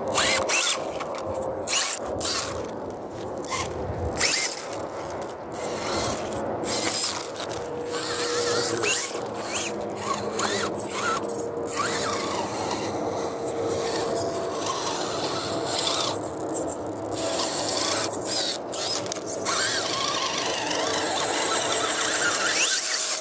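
RC rock crawler's electric motor and geared drivetrain whining as it climbs, the whine rising and falling with the throttle, mixed with tyres scraping and clicking over rock and dirt.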